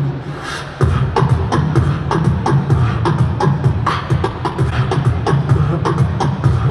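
Human beatboxing through a handheld microphone and PA: fast rhythmic snare and hi-hat clicks over a deep, continuous bass. It thins out at the start, then comes back in full just under a second in.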